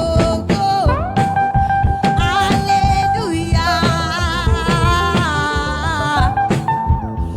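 Gospel praise music: a voice holds long notes with vibrato and slides between pitches over drums and backing instruments.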